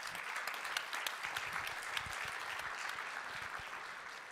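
Small audience applauding, many hands clapping together, the clapping dying away near the end.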